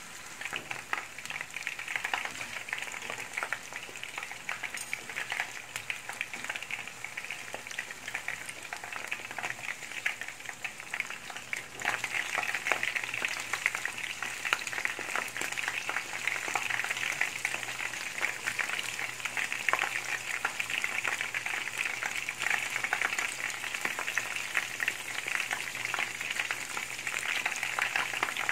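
Batter-coated shrimp deep-frying in a pan of hot oil: a steady, dense crackling sizzle that grows louder about twelve seconds in.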